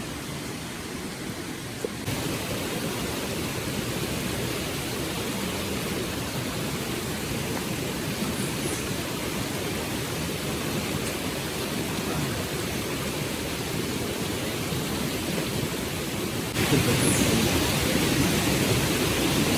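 Steady rushing noise with no clear pitch, stepping louder about two seconds in and again near the end.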